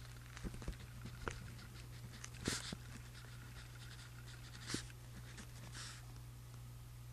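Pen writing on journal paper: irregular scratchy strokes and small clicks, a few louder strokes about two and a half and four and a half seconds in, over a steady low hum.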